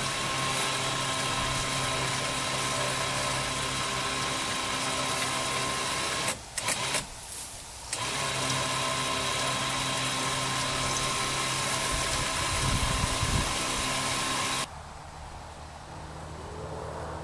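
ATV's electric winch motor running with a steady whine while the cable is paid out. It stops for about a second and a half near the middle, starts again, and cuts off a few seconds before the end. The 2006 Arctic Cat 400's engine idles underneath throughout.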